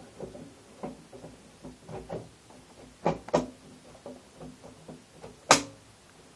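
Plastic case-fan holder being slid and pushed into a desktop PC case, giving a series of light clicks and knocks with a faint ringing after some of them. Two sharper knocks come about three seconds in, and the loudest single knock comes near the end as it seats.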